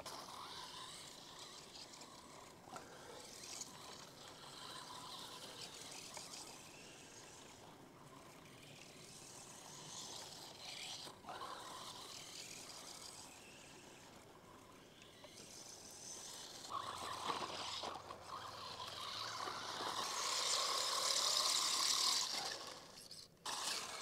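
Battery-powered 1:16 scale RC monster truck driving over dry grass: a faint electric motor whine with tyre noise, growing louder for several seconds near the end as the truck comes closer.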